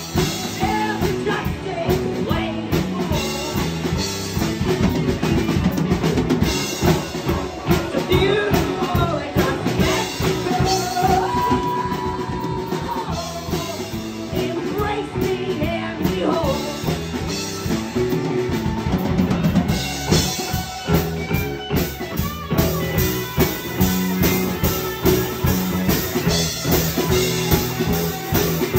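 Live rock trio playing: electric guitar, electric bass and drum kit, loud and continuous with a steady drum beat.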